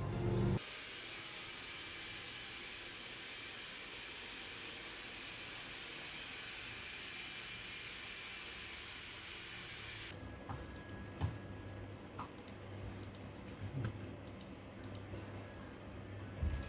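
Steady rushing hiss of a salon hair dryer for about nine seconds, cutting off abruptly. After that comes a quieter room with a low fan hum and a few scattered clicks.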